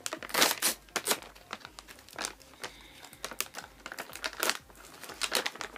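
Plastic snack bag crinkling in irregular crackles as it is handled and opened.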